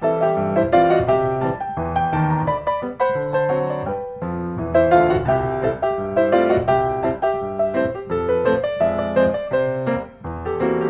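Background piano music, a steady run of quick notes with chords beneath.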